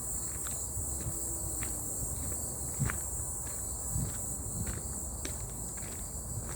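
Footsteps on a forest path, with a few heavier steps, over a steady high-pitched chorus of insects.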